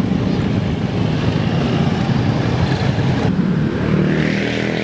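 Small motorcycle engines running on a road: a scooter idling close by, then, after an abrupt change about three seconds in, motorcycles riding past.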